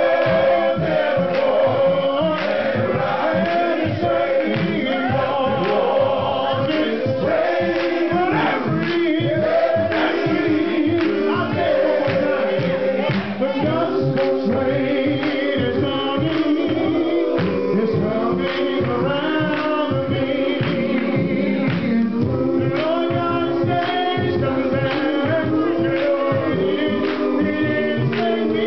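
Men's gospel choir singing with a lead singer on a microphone, while the congregation claps along on the beat.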